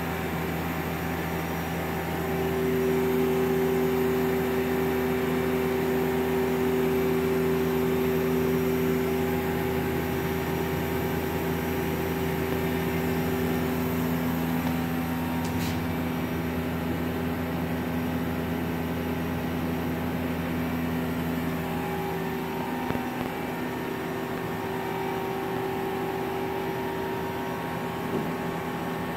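Mazak Quick Turn Nexus 200-II CNC lathe running with its spindle turning at 1470 RPM: a steady mechanical hum holding several steady tones.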